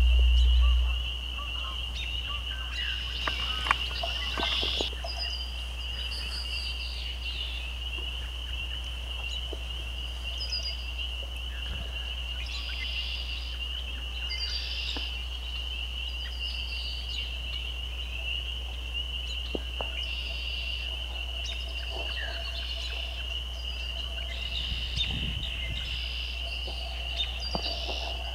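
A steady, high-pitched evening chorus of frogs, with scattered short bird calls over it. A low rumble fades out about a second in.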